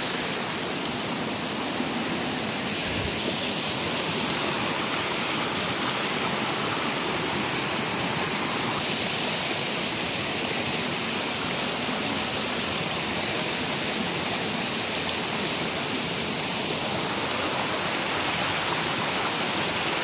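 Steady rush of water flowing and splashing over the rocks of a mountain stream, an even wash of noise that holds level throughout.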